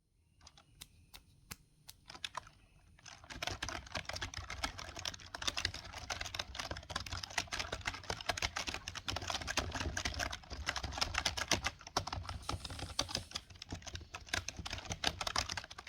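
Membrane gaming keyboard being typed on: a few separate key presses at first, then from about three seconds in, fast continuous typing.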